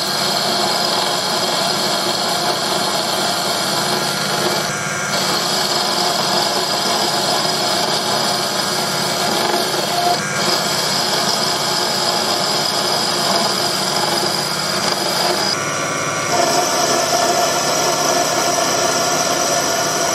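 Proxxon PD 250/e mini lathe running while an insert tool turns down the end of a steel shaft: a steady cutting and motor noise with a constant whine. It breaks briefly about every five seconds, between cuts.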